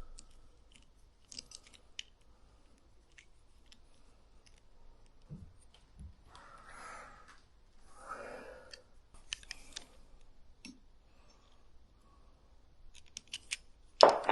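Scattered small clicks and taps of hand tools and hardware being handled during a dropper-post install, with two short noisy bursts about seven and eight and a half seconds in and a sudden loud burst of noise near the end.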